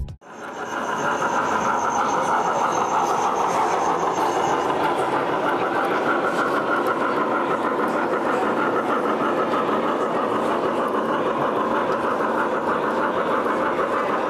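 Large-scale model steam locomotive running along the layout track: a steady running noise with a fast, even rhythm, and a high steady whine that stops about four seconds in.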